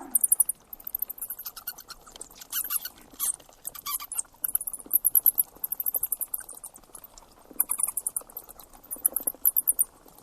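An animal's very high-pitched chirping: quick trains of rapid pulses, repeated in bursts about every second.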